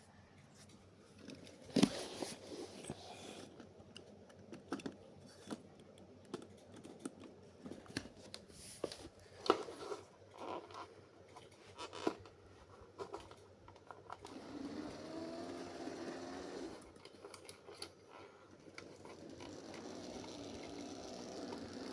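Small objects handled with scattered clicks and knocks, then a model train's small electric motor starts whirring about two-thirds of the way in and runs steadily, its pitch wavering.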